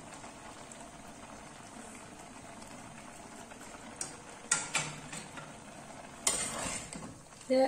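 Fish curry with grated coconut and moringa leaves simmering in a clay pot, a soft steady bubbling. There are a few sharp clicks about four and a half seconds in, and a spoon scrapes and stirs in the pot near the end.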